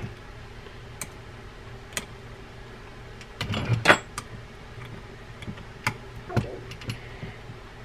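Scattered light metal clicks and clinks as a wrench and the slotted handle-nut retainer plate are worked onto the handle nut of a big conventional trolling reel, with a quick cluster of clicks about three and a half to four seconds in. A faint steady hum runs underneath.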